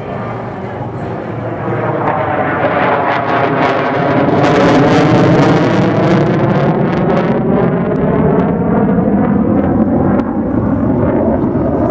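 Mitsubishi F-2 fighter's single F110 turbofan jet engine, loud as the jet flies overhead. The sound builds over the first few seconds, peaks about five seconds in with a sweeping whoosh, then stays loud.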